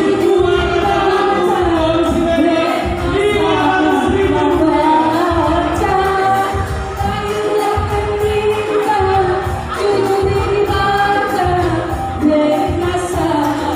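Live singing into handheld microphones, amplified over backing music with a steady low beat.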